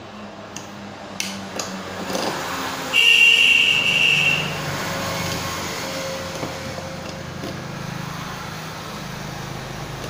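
A few light metallic clicks as a phone motherboard is shifted and clamped in a spring-loaded metal PCB holder. Then a steady low rumble comes in, with a loud high-pitched tone lasting about a second and a half around three seconds in.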